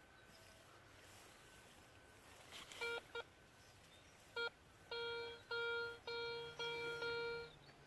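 Metal detector sounding its target tone as the coil sweeps over buried metal. Two short beeps come about three seconds in, another follows, then a run of longer, repeated beeps at the same pitch.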